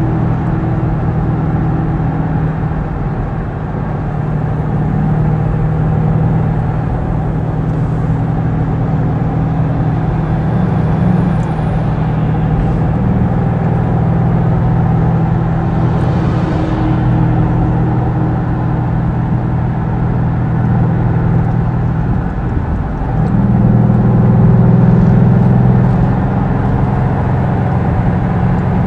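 Ford Mustang cruising on a highway, heard from inside the cabin: a steady engine drone over tyre and road noise. A tractor-trailer passing close alongside adds a brief hiss about halfway through. Near the three-quarter mark the engine note rises and grows louder for a few seconds as the car pulls harder.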